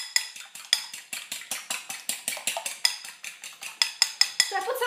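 Eggs being whisked by hand in a ceramic bowl: the utensil clicks against the bowl in a fast, even rhythm of about six strokes a second, each click making the bowl ring briefly. A voice comes in near the end.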